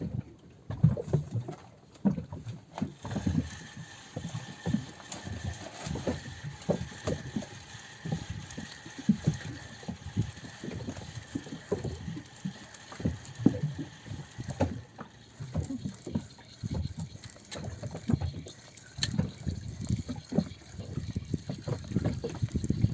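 Water lapping and splashing irregularly against a small boat's hull, with wind on the microphone.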